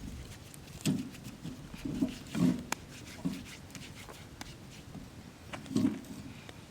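Livestock making about five short, low calls, spread over several seconds, with a few sharp clicks between them.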